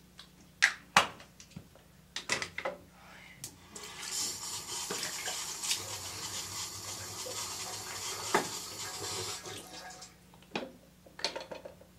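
Bathroom sink tap running for about six seconds, starting about four seconds in, with sharp clicks and knocks before and after it.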